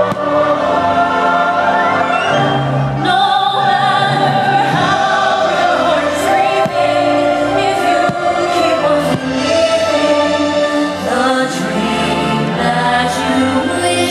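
Choral music with singing from a fireworks show soundtrack, with a few sharp firework bangs cutting through it.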